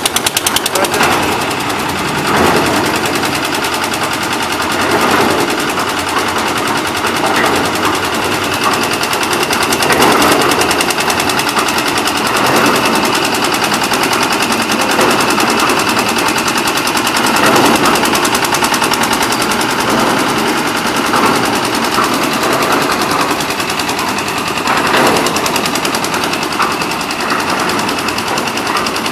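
Concrete mixer running: its engine gives a rapid, even knocking beat, with a louder noisy swell recurring about every two and a half seconds.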